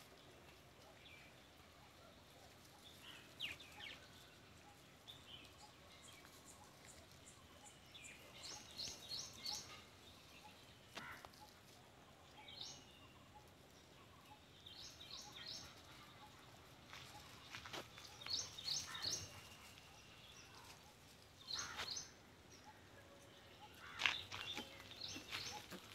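Quiet outdoor ambience with small birds chirping in quick clusters of three or four high notes every few seconds. Occasional soft rustles and clicks come between the chirps.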